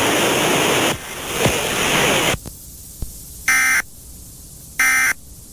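A steady hiss of static that cuts off about two seconds in, followed by two short, loud data bursts of the Emergency Alert System's end-of-message code, about a second and a quarter apart.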